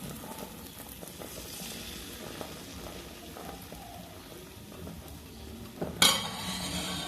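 Bánh xèo frying in a hot pan: a steady sizzle with small clicks and scrapes, then a sudden, much louder burst of sizzling about six seconds in.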